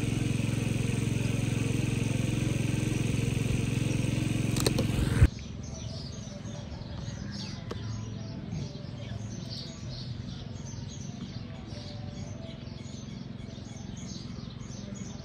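A vehicle's steady engine and road drone for about five seconds, which cuts off suddenly. Then comes a quieter stretch of birds chirping over and over, several chirps a second.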